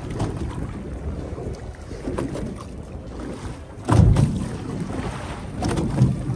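Wind buffeting the microphone and sea noise aboard a small fishing boat, a continuous low rumble. A heavy low thump comes about four seconds in and a smaller one near the end.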